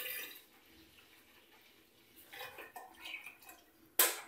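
Milk pouring into a large steel pot of cooked rice, plainest at the start, with fainter sounds after it, and a single sharp knock near the end.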